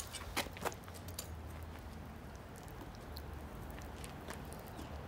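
Crucible tongs clinking, a few light metal clicks in the first second, then only a faint steady low rumble.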